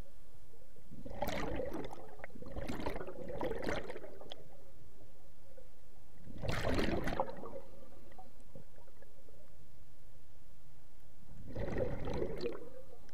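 Scuba diver's exhaled bubbles rushing out of the regulator underwater in separate breaths: a few bursts in the first four seconds, a stronger one at about seven seconds, and another near the end.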